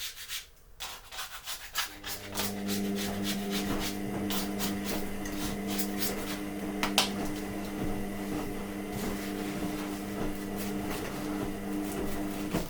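Kitchen roll rubbed back and forth over acetone-softened adhesive on a metal 3D-printer sheet, in quick repeated scratchy strokes. From about two seconds in, a steady low hum runs underneath and stops near the end.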